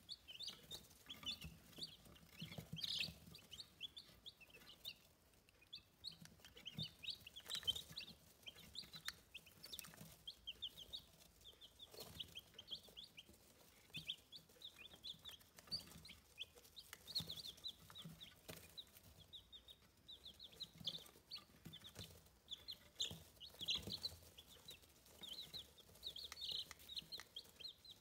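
Easter Egger and Buckeye chicks peeping without a break, many short high cheeps overlapping, with a few faint taps of beaks pecking at a plastic food tub.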